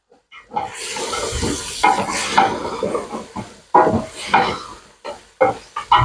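A spoon stirring beef and whole spices in a stainless steel pot, scraping and knocking against the metal sides and base again and again. It starts about half a second in.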